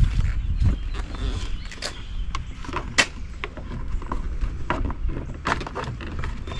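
Scattered light clicks and knocks of plastic trim and parts being handled and fitted, with one sharp click about three seconds in, over a steady low rumble.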